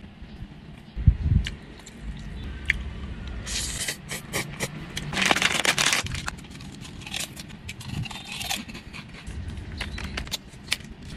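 Plastic snack packaging and a foil jelly drink pouch being handled, crinkling and crackling, with two louder tearing rustles around the middle. A soft low thump about a second in.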